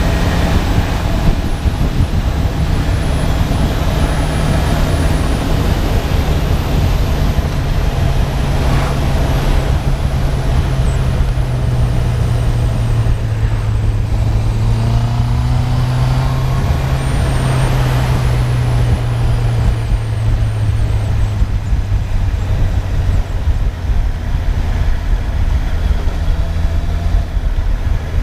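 Honda CB650R's inline-four engine running steadily under way, with a constant low rumble of wind and road noise. The engine note eases down gradually through the middle and climbs back near the end.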